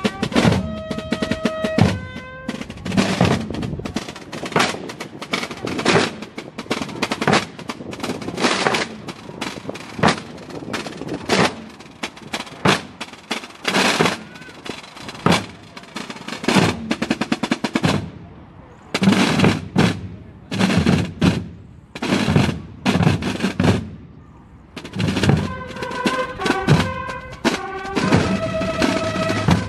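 A Holy Week procession drum corps of marching field drums played with sticks, beating a rhythmic pattern with rolls. Trumpets play held notes over the drums at the start and again near the end.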